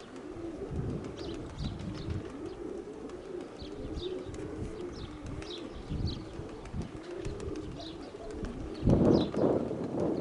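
Domestic pigeons cooing continuously, overlapping one another, while small birds give short high chirps every second or so. About nine seconds in, a brief loud rush of noise covers them.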